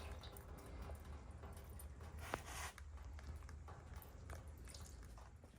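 Faint clicks and rustles of an oil filter being worked out straight down from its housing, over a low steady hum, with one sharper click a little over two seconds in.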